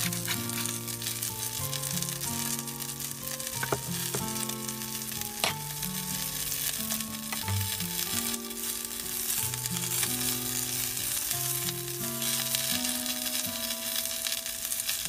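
Asparagus and pork neck sizzling steadily in a hot cast-iron skillet, with a couple of sharp pops a few seconds in. Soft background music plays over it.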